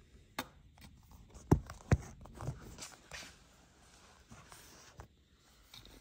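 Handling noise: a few light taps and rubs, with two sharper knocks about a second and a half and two seconds in, then quieter.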